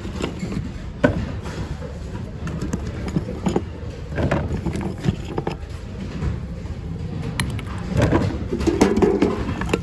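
Hand rummaging through a thrift-store bin of mixed goods: scattered knocks and clatters of plastic and glass items being moved, over a steady low hum of store background noise.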